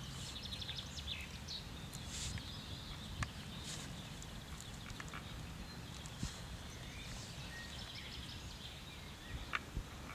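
Outdoor ambience with a steady low rumble and birds chirping in short trills, while scattered small clicks and rustles come from wires being twisted together by hand.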